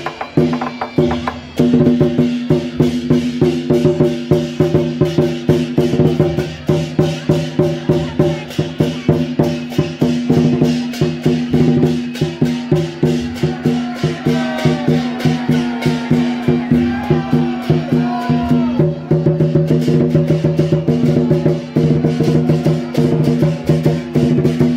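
Loud procession music: a fast, steady run of sharp wood-block-like percussion strikes over a held chord of steady tones, with some gliding higher notes in the middle.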